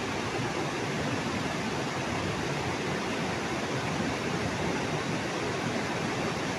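A rain-swollen hillside stream channel running fast through landslide debris, a steady rush of muddy floodwater.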